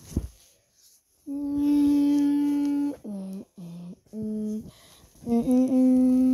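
A person humming a made-up logo jingle: one long held note, three short notes, then another long held note. A short knock just after the start.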